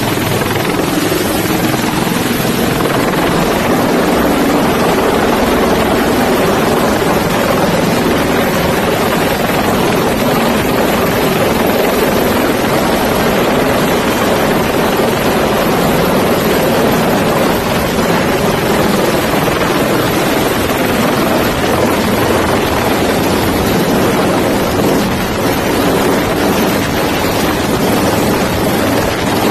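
HAL Dhruv helicopter hovering close overhead: steady, loud rotor and turbine noise that does not let up.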